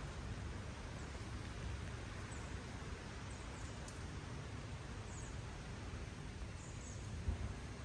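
Outdoor ambience in a garden: a steady low rumble with a few faint, short, high chirps of small birds scattered through, and a single soft thump near the end.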